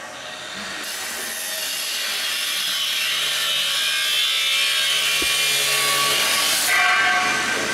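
Building-work noise from a power tool cutting or grinding, running continuously and growing gradually louder over several seconds, then shifting to a different, more tonal sound near the end.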